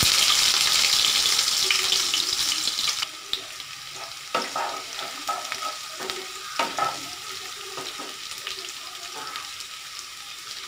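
Chopped onion sizzling in hot oil with cumin seeds in a nonstick kadai. The sizzle is loud at first and drops sharply about three seconds in to a quieter frying hiss. A wooden spatula stirs and scrapes the pan in short strokes.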